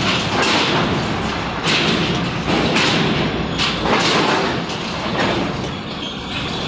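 Heavy trucks rolling off a ferry's steel ramp onto the steel linkspan, their wheels setting off a series of loud thuds and clanks over a low engine rumble.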